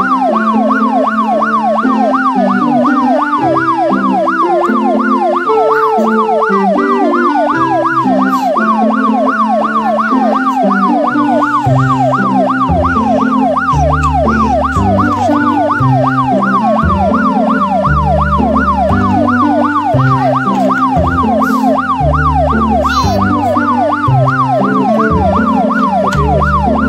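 Background music with a fast up-and-down siren wail, about three sweeps a second, over a stepped synth melody; a bass line comes in about halfway through.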